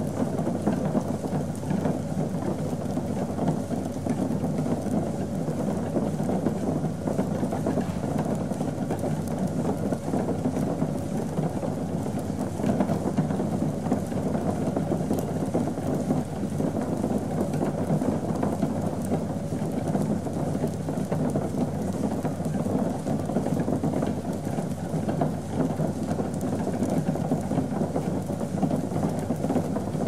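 Brewing equipment in a brewery, running steadily: a dense, even crackling rush over a low hum that does not change.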